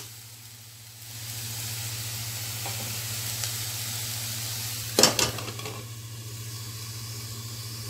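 Cauliflower pieces sizzling and frying in an aluminium kadai while a steel spatula stirs them. About five seconds in a glass lid is set on the pan with a brief clatter, after which the frying goes on a little quieter under the lid.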